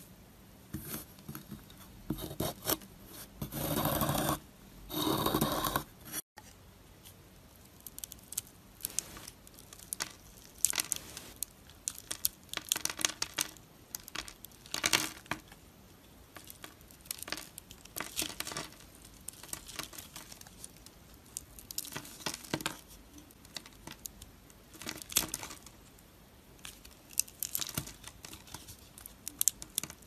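Dry bar soap being cut and carved with a knife: crunching, crumbly strokes, then many short, crisp crackles as a gold-coated bar is scored into small cubes that snap off. The first few strokes, up to about six seconds in, are the loudest and longest; after a brief break the cuts are quicker and lighter.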